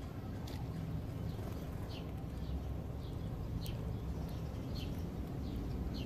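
House sparrows chirping: a string of short, falling chirps, one every half second or so, over a steady low rumble.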